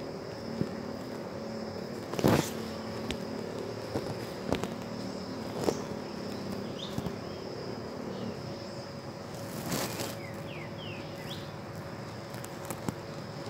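Rainforest ambience: a steady high insect drone, with several short, high, falling chirps around the middle and a few sharp knocks.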